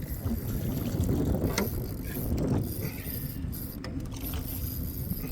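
Gear being handled in a small aluminum fishing boat: a low rumble with scuffing, and a few sharp knocks and clicks.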